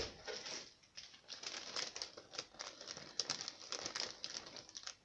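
Clear plastic model-kit parts sprue and its plastic packaging being handled: dense, irregular crinkling and crackling that stops suddenly at the very end.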